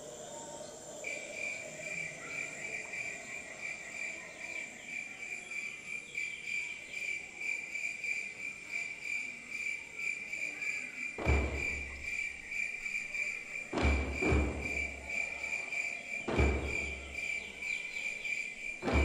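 A steady, rapidly pulsing high cricket trill starts about a second in and carries on. From about eleven seconds, deep drum beats come in roughly every two and a half seconds.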